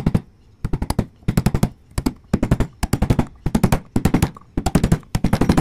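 A hammer strikes a chisel paring out the mortise of a wooden hand-plane body. The blows come in quick clusters of several sharp taps, about two clusters a second.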